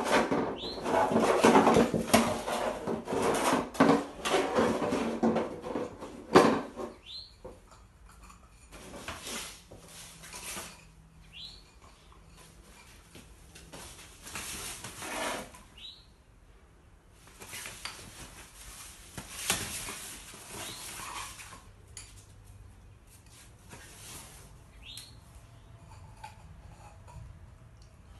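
A German shepherd puppy playing on a laundry hamper among his toys: bursts of clattering and rustling, heaviest for the first seven seconds, then in shorter spells. A short, rising high chirp sounds every few seconds.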